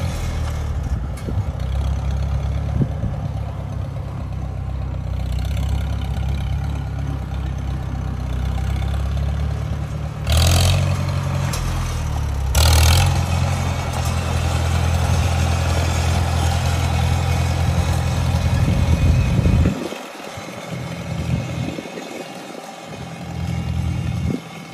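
1957 Farmall 350 tractor's four-cylinder engine running as the tractor is driven over gravel, with two brief louder bursts about ten and twelve seconds in. The sound drops off and turns uneven in the last few seconds as the tractor heads away.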